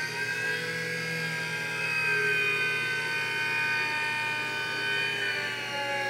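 Low-geared DC gearmotor of a motorized camera slider being back-driven by hand as the carriage is pushed along the rail, its gearbox giving a noisy, steady whine of several pitches that sags slightly near the end.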